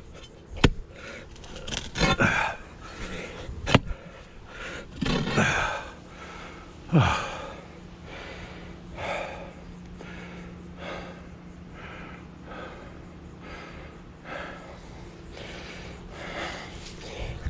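A man breathing hard and gasping from digging exertion, about one breath a second through the second half. A few sharp knocks come in the first four seconds.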